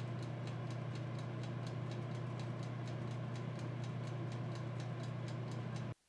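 Electric oven running: a steady low hum with a fast, even ticking, about four ticks a second, which cuts off suddenly near the end.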